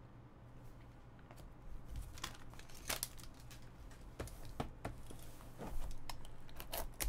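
Handling and cutting of trading-card packaging: a utility knife slitting the seal of a cardboard card box, with crinkling and scattered sharp clicks and scrapes. It starts about two seconds in and grows busier near the end.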